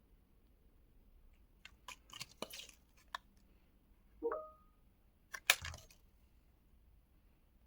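Hands handling a camera cleaning kit's packaging and parts: a few clicks and rustles, a short squeak about four seconds in, and a sharp snap about five and a half seconds in, the loudest sound.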